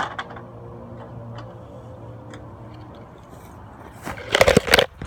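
Phone microphone rubbing and knocking against cloth and fingers as the phone is handled in a pocket. Faint scattered clicks sit over a low steady hum, then a loud burst of rustling and knocking comes about four seconds in.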